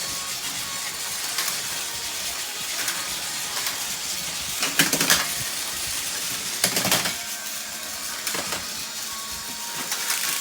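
Battery-powered Plarail plastic toy trains running: a steady whirring hiss with scattered clicking, and clattering knocks about five and seven seconds in.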